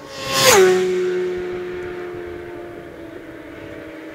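Superbike passing flat out at close range: its engine note swells to a peak about half a second in and drops sharply in pitch as it goes by, then fades away down the road.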